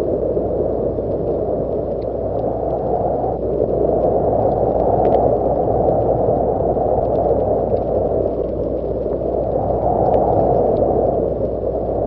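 Steady, muffled rushing of falling rain that swells and eases slowly, with faint scattered ticks of drops.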